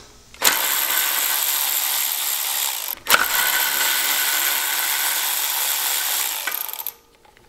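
Milwaukee cordless electric ratchet running, backing off the two 10 mm nuts that hold the heat shield on the EGR bypass valve. It makes two steady runs of about two and a half and four seconds, split by a short pause and a click about three seconds in.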